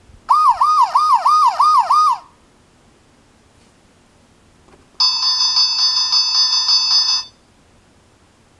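A sound book's small electronic speaker plays a fire-engine siren, six quick rising-and-falling wails over about two seconds. After a pause of about three seconds, an electronic fire-station bell rings steadily for about two seconds.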